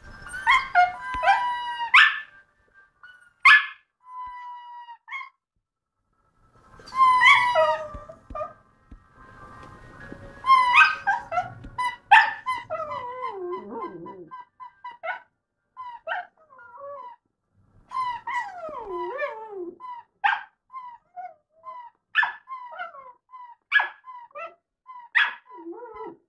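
A dog's squeaky toy being squeezed and chewed: a long irregular run of high, whine-like squeaks, some short and some sliding down in pitch, with brief pauses between them.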